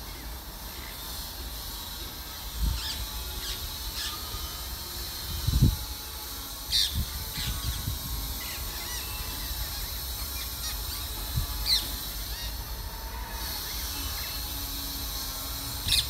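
Outdoor ambience: a few short, high bird chirps scattered over a steady low rumble, with a low thump about five and a half seconds in.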